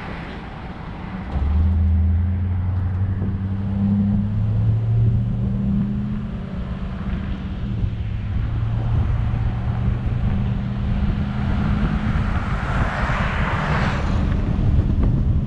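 Pickup truck's engine pulling away and running under load as it tows a trailer of firewood, with road and wind noise around the truck bed; the low engine hum steps up about a second in and changes pitch partway through. Near the end a passing car's noise swells and fades.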